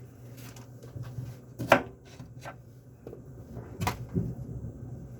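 Several irregular sharp kitchen knocks and clacks of hard items being handled while a smoothie is prepared, the loudest about a second and a half in, over a steady low hum.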